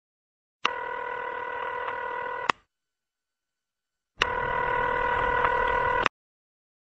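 Telephone ringing: two electronic rings of about two seconds each, each a steady chord of tones, with a short silence between them; the second ring is louder.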